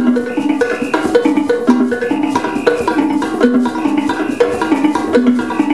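Wooden xylophones struck with sticks, playing a quick, repeating pattern of short pitched notes, with hand drums underneath.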